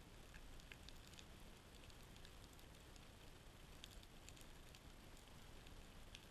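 Near silence underwater: a faint hiss with sparse, scattered short clicks and crackles.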